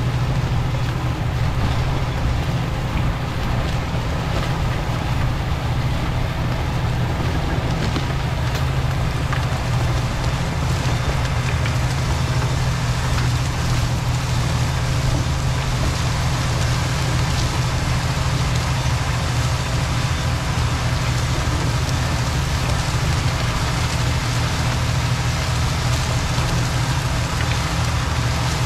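John Deere 8310R tractor running steadily under load as it pulls a chicken-litter spreader that is throwing out litter: a constant low engine drone with steady tones above it and a crackling, noisy hiss throughout.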